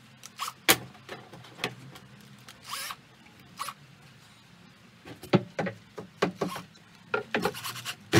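Irregular sharp clicks and knocks, with a couple of short scrapes, from hand tools and chainsaw parts being handled during a fuel tank change. The clicks come in a quick cluster in the last three seconds.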